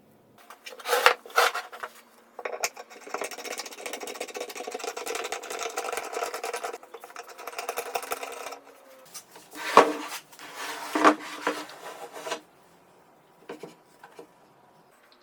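Workshop handwork: two sharp knocks, then about six seconds of steady rubbing or rasping, then a louder knock and some shorter scrapes and knocks.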